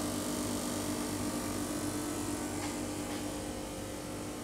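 Steady low electrical hum from a shop's refrigerated chiller cabinets, with two faint clicks about three seconds in.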